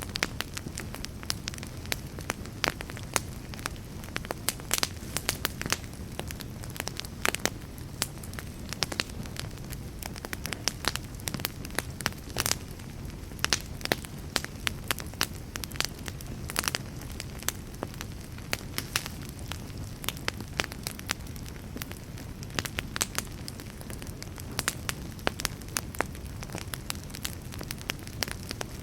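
Wood fire burning in a fireplace: a steady low rumble of flame with frequent sharp, irregular crackles and pops from the burning wood.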